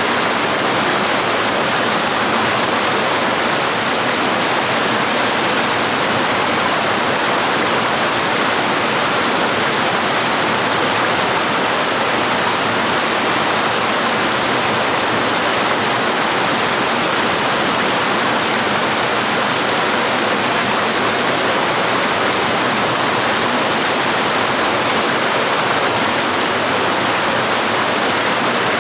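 Waterfall and stream water flowing: a steady, even rush of water with no breaks or changes.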